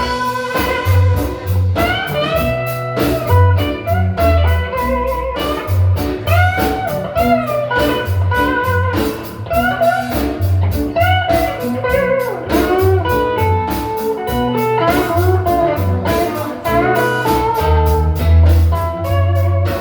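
Live blues band playing: a lead guitar with bent, gliding notes over a bass line and drums.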